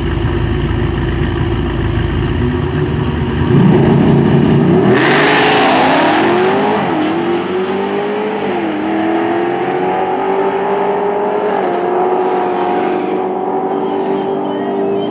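Two drag cars, a Dodge Charger and an older muscle car, rumbling at the starting line, then launching hard at full throttle about three and a half seconds in. Their engine notes climb and drop at each upshift as the cars pull away down the track.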